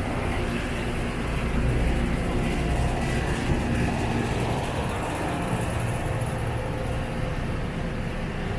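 City street traffic: a steady rumble of vehicle engines running and passing.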